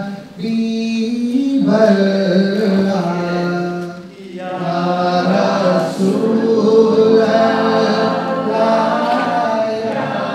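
A male voice singing a nasheed in long, held, ornamented phrases, with short breaths near the start and about four seconds in.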